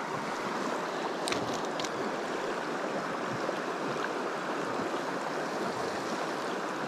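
Shallow, rocky river running over riffles: a steady rush of flowing water.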